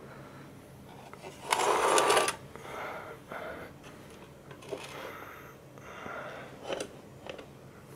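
Perforated sheet-metal cover of a UPS being slid off its chassis: one loud metal scrape about a second and a half in, lasting under a second, then lighter rattles and clicks as the cover and case are handled.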